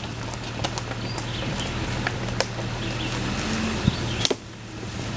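Jeep Grand Cherokee engine running steadily at low speed off-road, with scattered clicks and knocks from the tyres and body working over sticks, stones and mud. The overall sound drops briefly about four seconds in.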